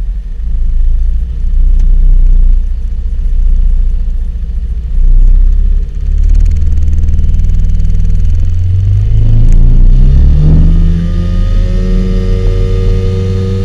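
Small tiller outboard motor on an aluminum fishing boat running at low speed, then throttled up about nine to eleven seconds in, its pitch rising and then holding steady as the boat gets under way.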